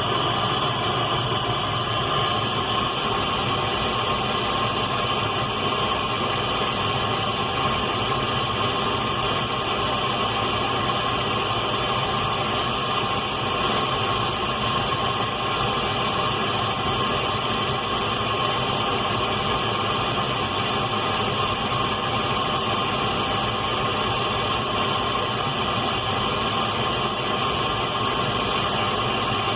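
Radio static: a steady, unbroken hiss that holds the same level throughout.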